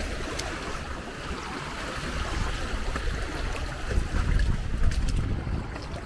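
Surf washing up on a sandy beach, with wind buffeting the microphone; the rumble swells about four to five seconds in.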